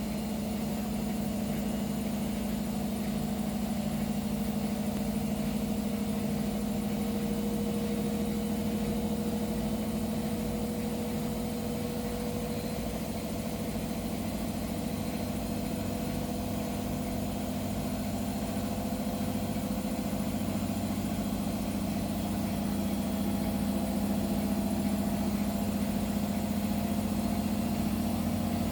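Hotpoint WMA0863 washing machine running steadily with a low hum and a faint wavering higher tone, the squeak it has made since a memory foam pillow was washed on the wool cycle.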